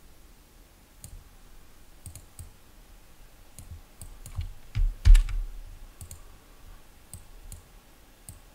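Computer mouse clicking, about a dozen single clicks spaced irregularly, as nodes are picked up and dragged into place. A louder low thump comes about five seconds in.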